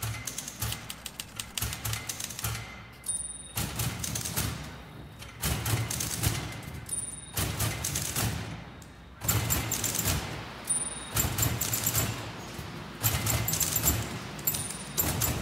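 Rapid typewriter key clatter in runs of a couple of seconds, each run ending in a high bell ding, four times, over a low steady beat: a music track built from typewriter sounds.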